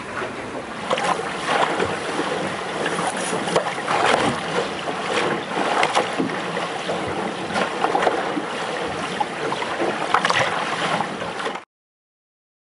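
Water rushing and splashing along a sailboat's hull under way, heard from inside the cabin, with irregular sharper slaps of waves against the hull. It cuts off suddenly near the end.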